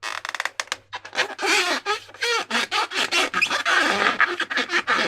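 Rubber balloon squeaking and crackling as it is handled: a rapid run of clicks with short squeals that bend up and down in pitch.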